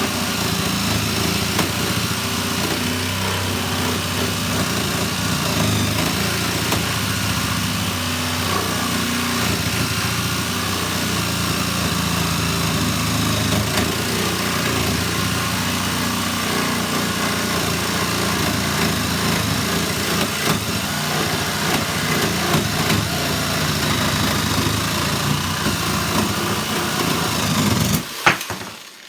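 Black & Decker 6V cordless handsaw, converted to run on a Makita 7.2V lithium battery, running steadily with its small motor and blade drive, then cutting off sharply about a second before the end.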